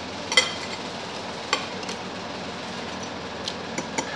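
Metal fork and spoon clinking and scraping on a ceramic plate while eating: a sharp clink about half a second in, then a few lighter clinks, more of them near the end, over a steady background noise.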